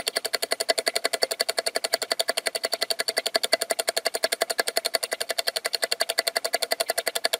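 Rapid, evenly spaced clicking, about eleven clicks a second, in a steady mechanical rhythm.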